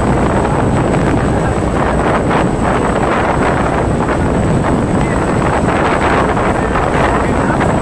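Wind buffeting the microphone on the deck of a moving passenger ferry, over the steady low rumble of the ferry's engines.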